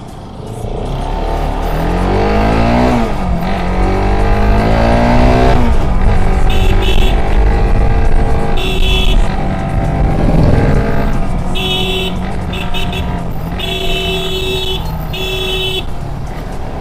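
Bajaj Pulsar RS200's single-cylinder engine accelerating through the gears, its pitch rising and then dropping at two shifts before settling to a steady cruise. A run of short high-pitched beeps sounds over it in the second half.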